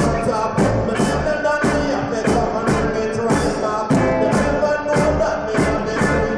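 Live reggae band playing an instrumental passage with a steady, even beat.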